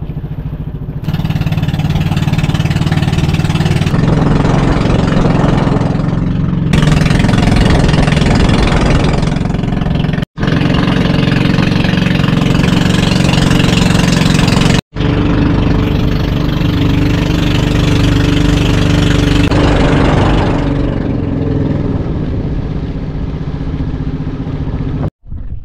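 Small fishing boat's engine running steadily under way, with a loud hiss of wind and water over the motor drone. The sound drops out to silence for an instant three times.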